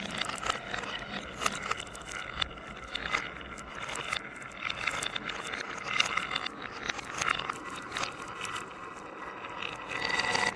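Marbles rolling down a wooden marble run, a continuous rattle along the wooden track with many sharp clicks as they hit the wood and each other.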